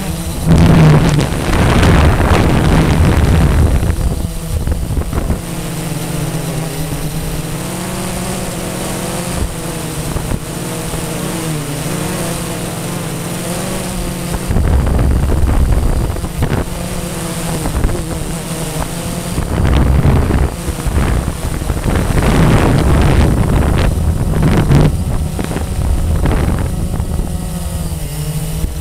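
Blade 350 QX quadcopter's electric motors and propellers whirring steadily in flight, the pitch wavering as the motors work against the wind. Wind buffets the microphone in loud gusts, strongest in the first few seconds and again past the middle.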